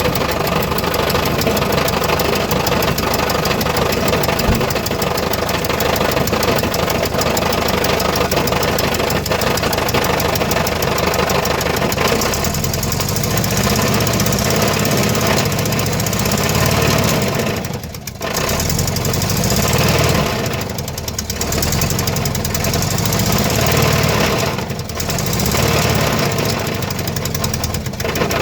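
Volkswagen T3 van's engine running with an abnormal noise. About twelve seconds in the sound changes, and it dips briefly three times.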